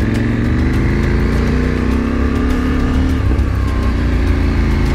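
KTM 790 Adventure's parallel-twin engine under way at low speed, its pitch rising gently over the first couple of seconds, easing briefly about three seconds in, then running steadily.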